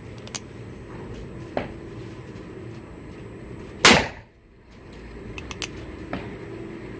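A single shot from an Uberti Cattleman single-action revolver about four seconds in, sharp and loud with a short ringing tail. A few much fainter sharp clicks come before and after it.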